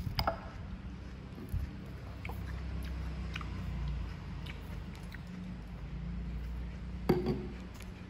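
Light handling at a marble tabletop: a sharp clink at the start as a fork moves in a glass bowl, a few faint taps, then a sharp knock with a short ring about seven seconds in as a small plastic yogurt bottle is set back down. A low steady hum runs underneath.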